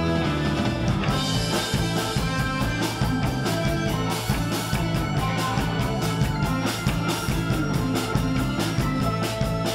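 Instrumental rock music with electric guitar and a drum kit keeping a steady beat.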